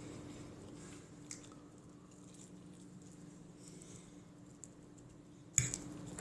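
Quiet chewing and small clicks of eating, over a faint steady low hum, with one sharp knock near the end.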